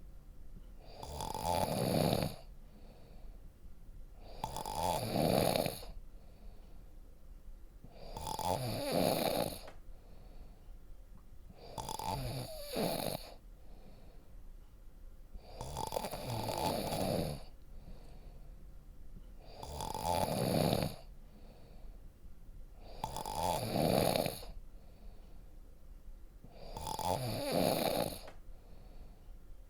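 A person snoring deeply and rhythmically: eight long snores in all, one about every four seconds, with quieter breathing gaps between.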